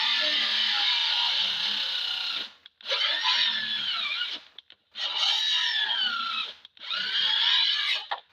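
Power saw with a Diablo blade cutting cedar: one long cut of about two and a half seconds, then three shorter runs, each stopping suddenly.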